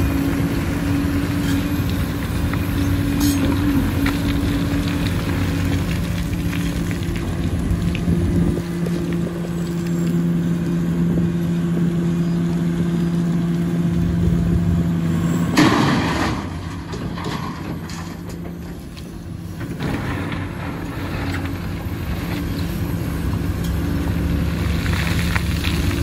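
Large Komatsu hydraulic excavator's diesel engine running steadily under load while it loads rock into a dump truck. A loud burst of noise comes about halfway through, the engine sound dips for a few seconds after it, and scattered clattering of rock follows near the end.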